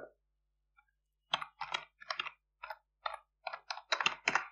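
Typing on a computer keyboard: about a dozen quick, uneven key taps, starting about a second in.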